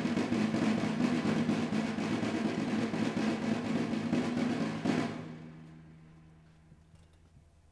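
Drum roll on a hand-held marching drum beaten with sticks, with a steady low tone under it. A final stroke about five seconds in ends the roll, and the sound dies away to near silence.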